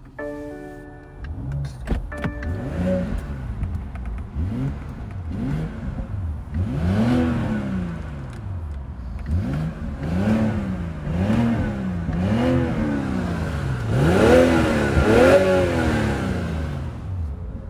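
2022 BMW 540i's 3.0-litre inline-six engine revved through the exhaust in a series of throttle blips. Each blip rises and falls in pitch, and the two near the end go highest.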